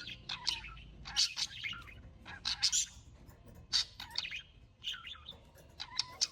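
Small birds chirping in short bursts of high calls, about one burst a second.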